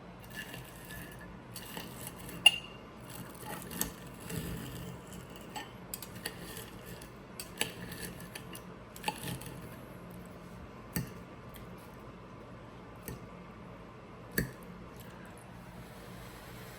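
Cutlery clinking against plates and bowls during a meal, a series of sharp, scattered clinks with the loudest about two and a half seconds in.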